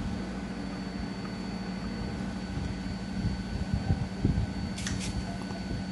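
Steady low mechanical hum with a thin high whine over it, with a few faint handling knocks and two short hisses about five seconds in.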